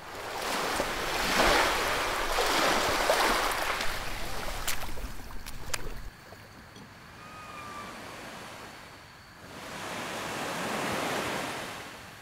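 Ocean surf washing in: a long, loud rush of waves over the first six seconds with two sharp clicks near its end, then quieter, and a second gentler wave swelling up near the end.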